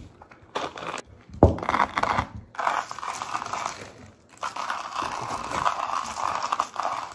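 Manual coffee grinder crunching through whole espresso beans as it is worked, a steady grinding that starts about two and a half seconds in and pauses briefly a little after four seconds. Before that come a few knocks and rustles, one sharper knock among them.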